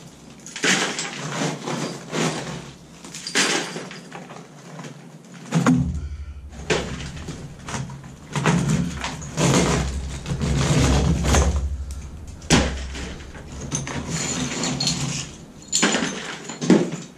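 Broken ceramic tile and concrete chunks clattering and scraping as they are gathered up off a concrete floor by hand and tossed into a plastic bucket, in an irregular run of knocks. A low rumble sits underneath from about six seconds in.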